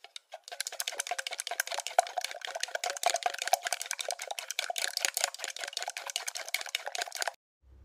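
Thin millet porridge poured from a plastic cup into a plastic bowl of peanut butter while a wooden stick stirs it: a dense run of quick wet clicks and splashes that stops abruptly shortly before the end.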